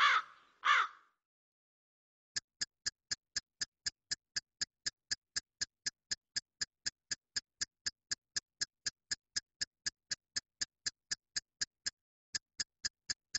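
The music cuts off with two short pitched blips, then silence. About two seconds in, an even ticking starts: identical short clicks at about four a second, with one brief gap near the end.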